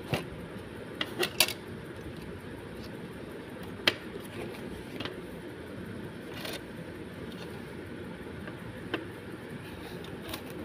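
Hard plastic pencil case being handled: short sharp plastic clicks and taps as its hinged lid is moved and the case is closed, with three clicks in quick succession about a second in and the loudest single click about 4 s in. A steady background noise runs underneath.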